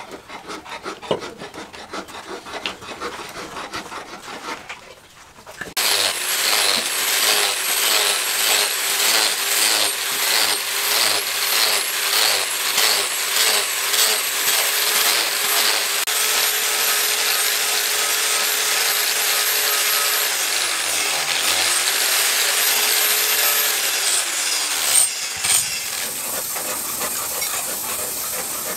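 Rhythmic scraping on a wooden axe handle, then an angle grinder starts suddenly and grinds the leaf-spring steel axe head with a steady whine that pulses with each pass; its pitch dips and recovers about two-thirds of the way through. It cuts off near the end, giving way to the hiss of an aerosol spray can.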